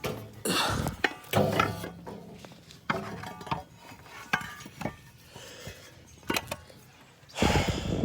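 Metal clanking and scraping in irregular bursts as an old exhaust header is worked free and lifted out of a car's engine bay.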